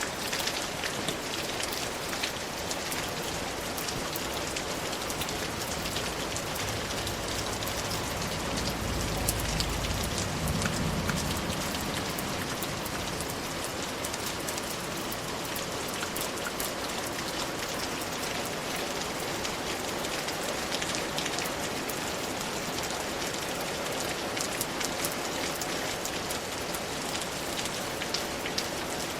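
Steady rain falling, an even hiss with individual drops ticking through it. A low rumble swells and fades about eight to twelve seconds in.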